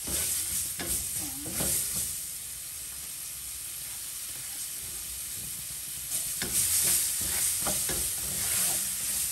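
Chopped onions frying in hot oil in a pan, sizzling steadily. A utensil stirs and scrapes the pan in the first couple of seconds and again in the second half.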